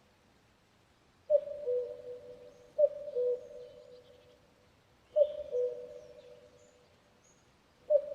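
Common cuckoo calling "cuck-oo": two-note calls, each a higher note dropping to a lower one, three times with a fourth starting near the end. Faint chirping of other small birds in the background.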